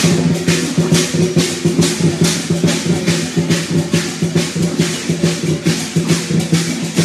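Chinese dragon-dance percussion: drums and cymbals playing a quick, steady beat, the cymbals clashing about two to three times a second.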